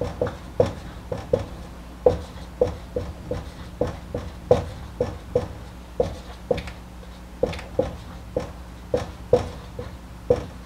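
Marker tapping and stroking on a whiteboard as entries are written: irregular sharp knocks, about two or three a second, each with a short ringing tone from the board, over a steady low hum.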